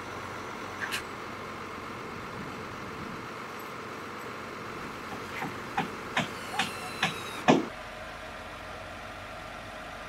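Hammer blows on timber framing: one knock, then a run of six blows about two to three a second, mostly growing louder, the last the loudest, with a faint metallic ring. A steady machinery hum runs underneath.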